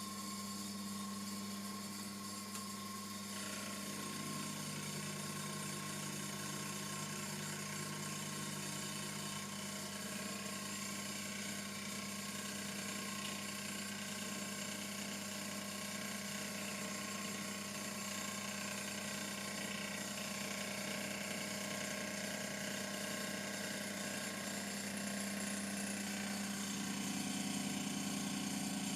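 TAIG milling machine running steadily, its motor and spindle giving a steady hum with a whine above it, turning a little louder near the end.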